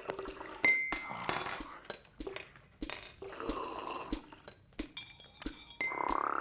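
Scattered knocks, clicks and light clinks of stage props being handled, in a room.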